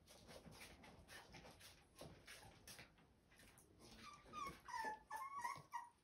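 Rottweiler puppy whimpering: a run of short, high squeaky cries starting about four seconds in, after a stretch of faint light tapping.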